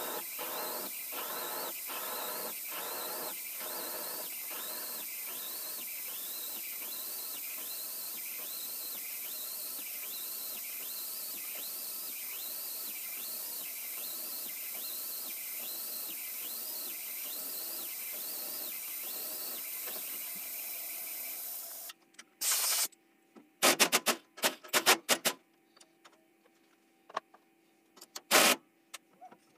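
Milling machine drilling a 1/2 inch hole through hot-rolled steel flat bar, under a steady hiss of mist coolant spray, with a regular squeak from the cut about one and a half times a second. The drilling stops suddenly about two-thirds of the way in, and several sharp metal knocks and clanks follow as the tooling is handled.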